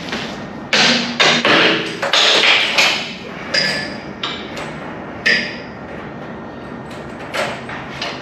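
Irregular metallic clanks and knocks from heavy steel car-lift parts being handled, some ringing briefly. They come in a quick cluster at first, then as single hits spaced a second or more apart.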